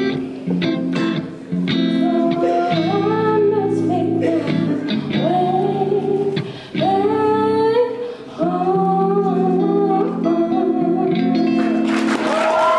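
A woman singing live into a microphone, accompanying herself on a strummed electric guitar. Near the end the audience breaks into cheering and applause.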